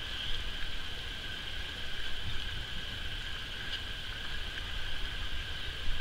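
Outdoor ambience: a steady high-pitched drone over a low, uneven rumble, with no bird calls.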